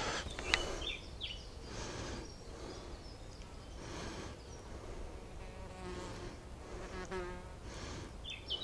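A flying insect buzzing close by with a wavering pitch, clearest a little past the middle, among a few soft handling clicks and brief bird chirps.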